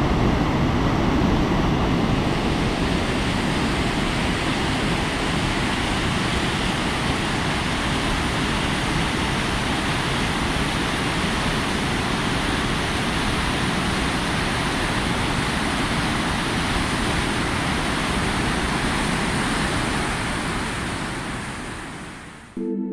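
Steady rushing noise of a snowmobile on the move: engine and wind on the microphone blend into an even roar that fades out near the end.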